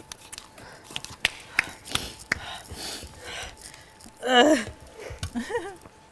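People gasping and breathing hard while holding in their laughter, among scattered small clicks and knocks. A loud wavering squeal bursts out about four seconds in, and a shorter one follows a second later.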